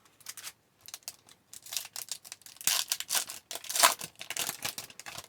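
A hockey card pack's wrapper being torn open and crinkled by hand: a run of short crackling rips, loudest in the middle, with the cards handled between them.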